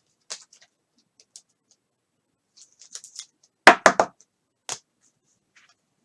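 Trading cards being handled: faint scrapes and rustles as cards slide, then a quick run of three sharp taps or clicks a little before four seconds in and one more about a second later.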